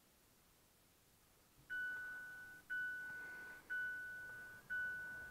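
A 2018 Mazda CX-5's dashboard warning chime, starting about a second and a half in and repeating about once a second: four clean bell-like dings, each fading before the next, as the ignition is switched on.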